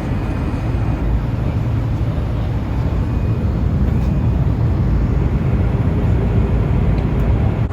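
Steady low rushing cabin noise inside a Boeing 787-8 airliner in flight: engine and airflow noise heard from a passenger seat.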